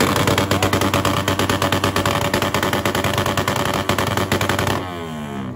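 Motorcycle engine revved hard and held at high revs, with a rapid crackle from an exhaust that is spitting flames. About five seconds in, the revs drop away.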